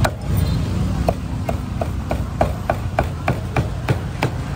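Cleaver chopping roasted meat on a chopping block: a quick, even run of about a dozen strokes, roughly three a second, each with a short ring.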